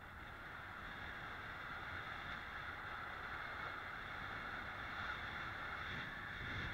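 Steady rush of water and wind while a kitefoil board moves across choppy water, swelling over the first second or so and then holding.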